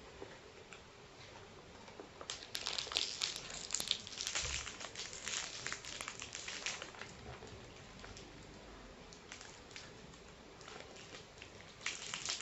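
Plastic candy wrapper crinkling as it is handled, in bursts from about two to seven seconds in and again near the end.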